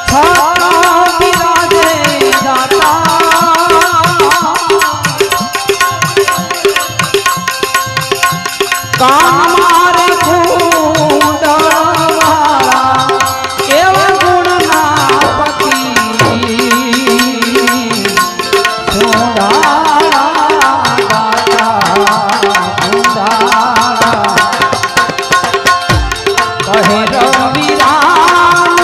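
Bhajan music: tabla keeping a steady rhythm under a sliding, ornamented melody line with steady held notes beneath it.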